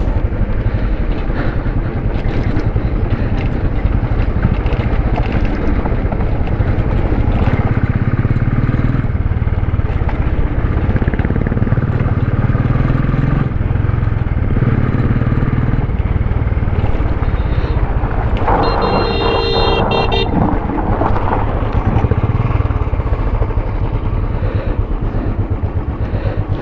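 Royal Enfield Classic 350 single-cylinder engine running under way on a rough dirt track. A horn sounds for about two seconds roughly two-thirds of the way through.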